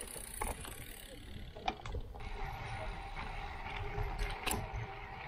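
Wind rumbling on the microphone over road noise during a bicycle ride, with scattered sharp clicks. The sound changes abruptly about two seconds in, after which a steady mid-pitched tone joins the rumble.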